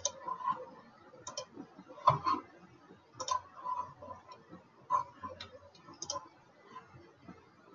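Scattered computer mouse clicks at irregular intervals, some in quick pairs.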